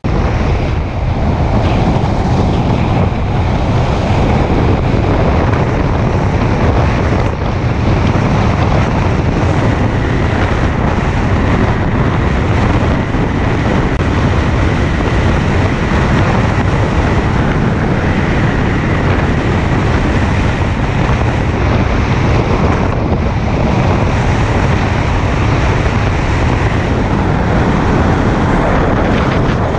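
Car driving at speed: a steady rush of wind over the microphone with road and tyre noise, and a faint steady high whine underneath.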